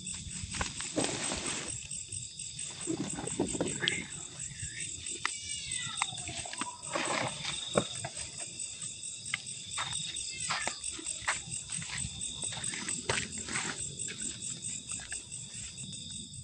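Crickets and other night insects trilling steadily, with a drawn-out falling wail about five seconds in, a cry that the listeners liken to a baby crying somewhere above. A few short knocks are scattered through it.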